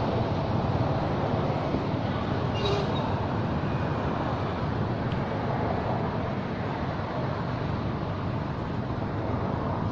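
Steady low rumble of outdoor background noise, with a brief faint high chirp about three seconds in.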